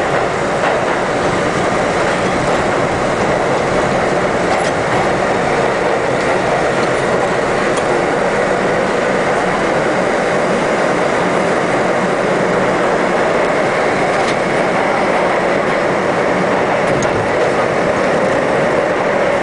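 R-32 subway train running through a tunnel, heard from inside the front car: a steady loud rumble of wheels on rails, with a few faint clicks.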